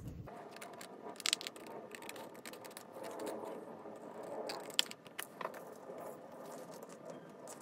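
Scissors cutting through cardstock as the edges of a card panel are trimmed, with the paper rustling as it is handled. A few sharp snips stand out about a second in and again around the middle.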